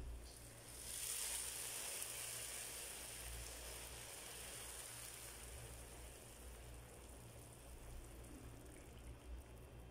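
Hot sugar syrup poured from a saucepan onto hot, freshly baked basbousa (semolina cake), sizzling as it hits the cake and soaks in. The sizzle starts about a second in, is loudest at first and slowly dies down.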